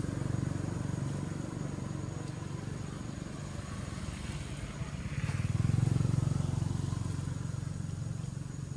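Road traffic passing: a vehicle engine's low rumble, swelling to its loudest about five to six seconds in and then fading.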